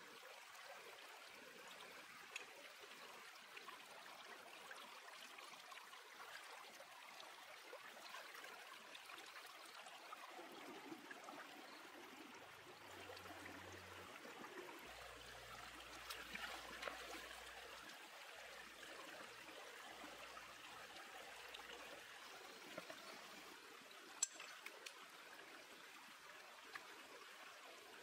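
Faint, steady running water of a shallow rocky stream, with a few soft clicks.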